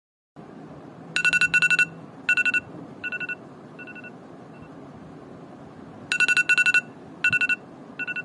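Smartphone ringing with a high electronic beeping tone: quick clusters of beeps that fade, pause, then start again loudly about six seconds in, over a steady background hiss.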